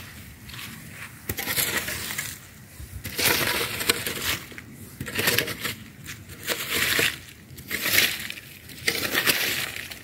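Garden hoe scraping and chopping through dry soil and leaf litter in repeated strokes, about one a second.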